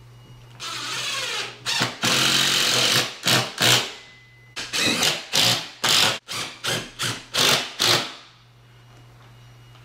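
Cordless drill driving screws into the ceiling: two longer runs, then a dozen or so short trigger pulses in quick succession as the screws are run in and seated.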